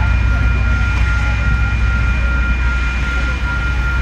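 Union Pacific passenger cars rolling past at a grade crossing: a steady low rumble of the train moving by, with a steady high-pitched ringing over it.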